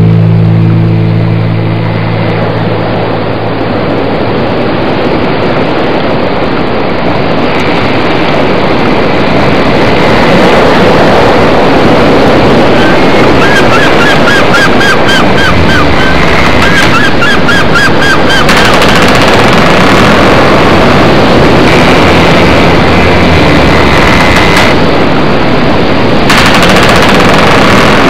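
Loud wind buffeting and crackling on the microphone of a moving motorboat, over the running of the boat's engine and the rush of the hull through the water. A rock guitar track fades out in the first few seconds.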